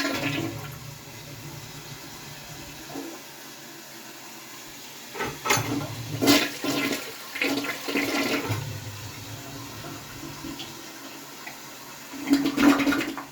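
1994 Gerber Stanton toilet flushing from a Crane Pneumo low tank: a steady rush of water, with three louder gurgling surges, the last just before the end.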